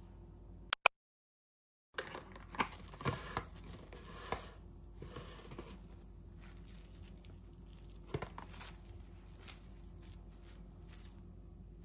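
Plastic cling wrap crinkling and crackling in short, irregular rustles as a sheet is spread and smoothed by hand over a cloth. Before that, a sharp double click about a second in is followed by a moment of dead silence.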